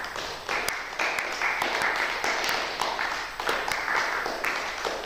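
A small audience clapping in a concert hall. The applause starts abruptly and keeps up throughout, with single claps standing out from the overall sound.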